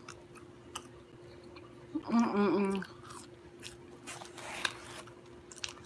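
A person chewing a crunchy crinkle-cut french fry, with scattered soft crunches and a short hummed "mmm" about two seconds in.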